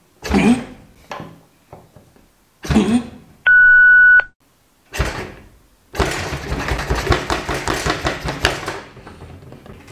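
A fire piston's plunger slammed down into its tube three times, each a short sudden thump with a rush of air. About three and a half seconds in, a loud steady electronic beep lasting under a second cuts across, and it is the loudest sound. Then comes about three seconds of dense noise.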